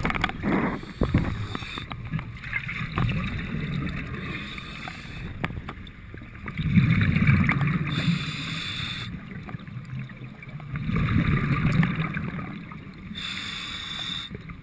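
A commercial diver breathing underwater on his gear: a low bubbling rumble on each exhale alternates with a hissing inhale, in a cycle of about six seconds. A few sharp knocks come in the first second.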